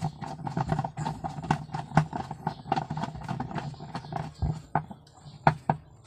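Screwdriver turning the centre screw of a top-loading washing machine's pulsator tight, making quick irregular clicks and taps, several a second.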